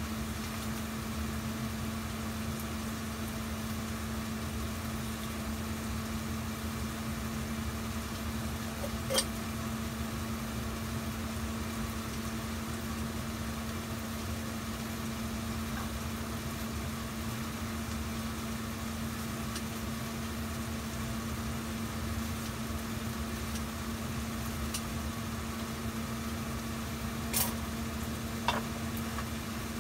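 Steady low hum and rumble of a lit gas stove burner under a pot, with a few sharp clicks, one about nine seconds in and two near the end.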